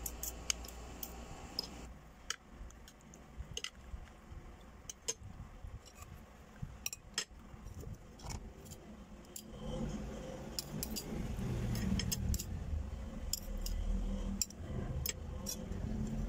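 Metal spoon and fork clinking and scraping against a plate while rice and stewed pork are eaten, in sharp, irregular clicks. A low rumble builds from about ten seconds in.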